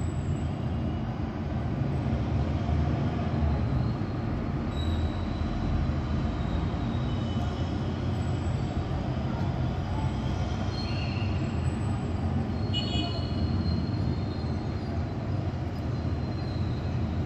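Steady low rumble of distant city noise, with faint thin high squeals now and then.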